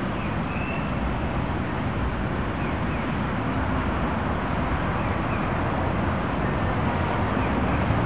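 Steady outdoor background noise, heaviest in the low end, with a few faint short chirps.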